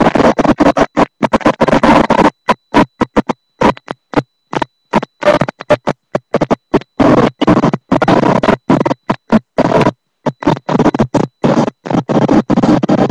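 Loud noisy sound that cuts out abruptly to silence several times a second at irregular intervals, a stuttering, glitching recording.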